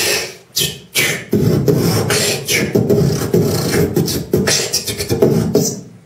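A man's voice in a fast, rhythmic vocal performance into a stage microphone, loud and percussive, with short breaks in the first second and trailing off near the end.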